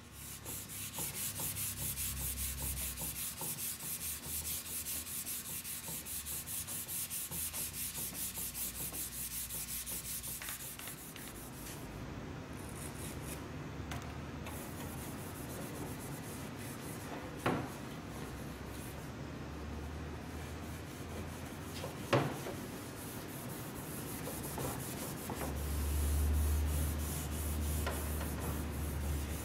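600-grit abrasive paper dry-sanding hardened clear coat, a scratchy rasp that pulses about twice a second at first as the paper is stroked back and forth, then runs more evenly. Two short clicks come part-way through. The sanding knocks down orange peel and flake edges in the clear before it is re-cleared.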